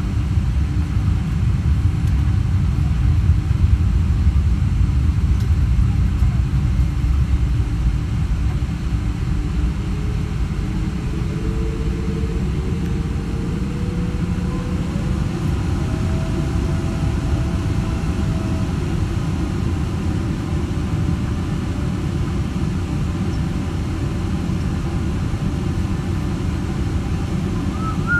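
Cabin noise of a Boeing 777-300 taxiing, heard inside the cabin by the wing: a steady low rumble from the engines and the aircraft rolling along the taxiway. Faint whining tones rise in pitch partway through.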